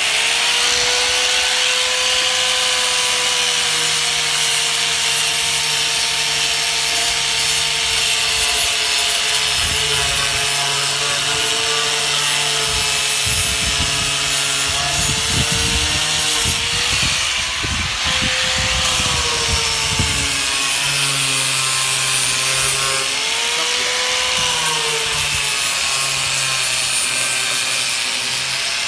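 Electric power sander running steadily as it sands down dried Bondo body filler, a motor whine over a rough scraping, the whine's pitch wavering and dipping as the sander is pressed and moved.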